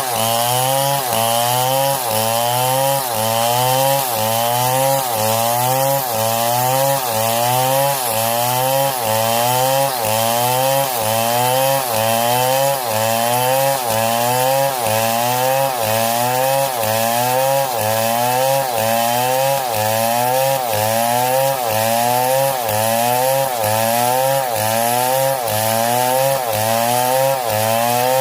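Small engine of a wood-cutting machine, chainsaw-like, running continuously. Its pitch rises and falls back about once a second in a very even rhythm, as if it is loaded and unloaded in regular cycles.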